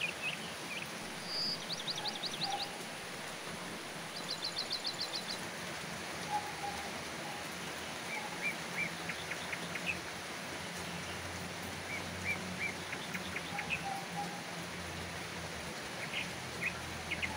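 Steady rain falling on garden foliage, with small birds calling over it: two quick rattling trills a couple of seconds in and again about four seconds in, then scattered short chirps.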